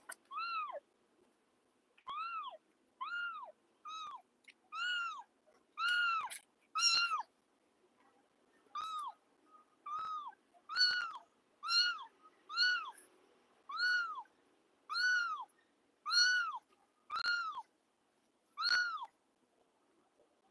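Young kittens meowing repeatedly: short high-pitched meows, each rising then falling, about one a second, with a pause of about two seconds near the middle.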